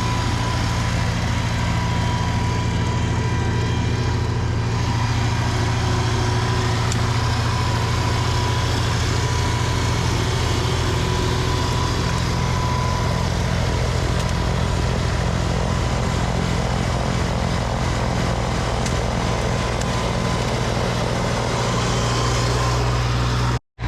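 Snowblower engine running steadily under load as it throws snow, with a faint steady high whine over the low engine hum. The sound cuts out for a moment near the end.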